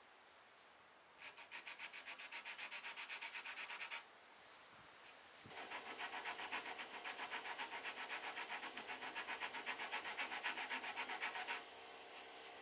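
Quick back-and-forth strokes of a small hand file rasping on a wooden table corner, about six strokes a second, flattening the spot for a glue joint. A short run starts about a second in, and a longer, louder run starts about five and a half seconds in and stops near the end.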